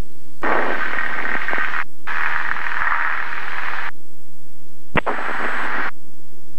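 A single-engine propeller plane's engine drones steadily, heard over the cockpit audio feed as the takeoff roll begins. Three rushes of radio static, each a second or two long, cut in over the engine, and a sharp click comes about five seconds in.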